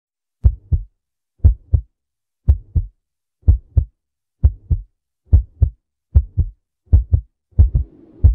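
Heartbeat sound effect in a song's intro: paired lub-dub thumps, the first of each pair the louder, about once a second and coming slightly faster toward the end. Faint music starts to swell in near the very end.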